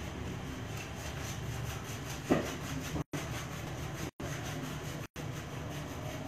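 Steady low background rumble with one sharp knock a little over two seconds in, and three brief cuts to total silence.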